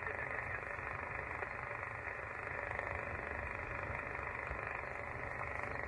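Steady hiss from an amateur radio transceiver's speaker between transmissions, cut off sharply above the upper voices, with a steady low rumble of wind underneath.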